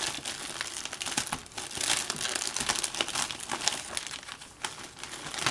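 Shipping package's wrapping crinkling and crackling irregularly as it is opened by hand, loudest about two seconds in.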